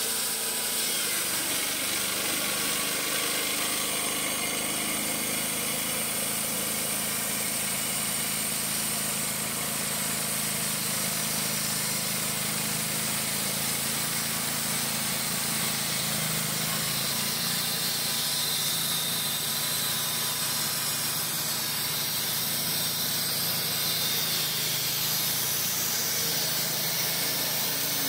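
Wood-Mizer LT35 portable band sawmill running steadily, its engine humming under a continuous hiss as the band blade cuts through a log.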